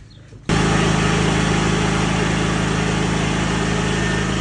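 Portable open-frame petrol generator running steadily under load, a constant engine drone that cuts in abruptly about half a second in.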